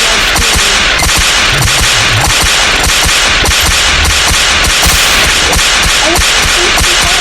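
Loud, dense barrage of sharp bangs and cracks in rapid, irregular succession, like machine-gun or firecracker sound effects piled on one another.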